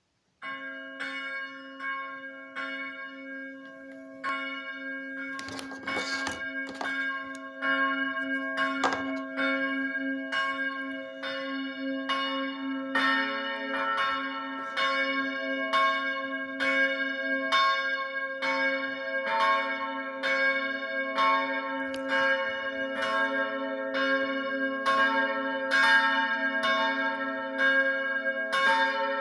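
Church bells ringing. One bell starts about half a second in, striking roughly once a second. About halfway through a second, deeper bell joins and the strokes come faster.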